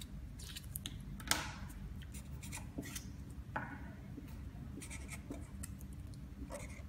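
Marker pen writing on paper: a series of short, scratchy strokes, with a few longer scrapes about a second in and near the middle.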